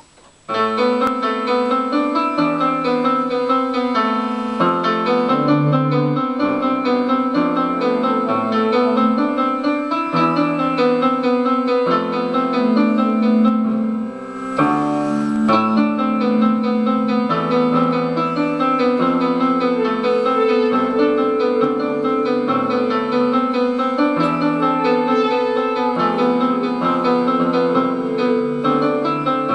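Keyboard and guitar playing an instrumental passage together, starting about half a second in, with a short break in the music about fourteen seconds in.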